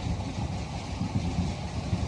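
Wind: a low, gusting rumble over a steady hiss.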